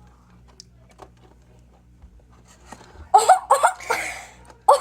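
A few faint clicks, then about three seconds in a girl's short, pitched vocal yelps and a breathy gasp, with another yelp near the end: her reaction to swallowing a mouthful of sour lemon juice.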